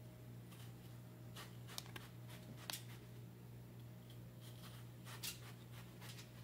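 Kitchen knife cutting and scraping through a watermelon half, a few faint crisp cuts at irregular moments, over a steady low hum.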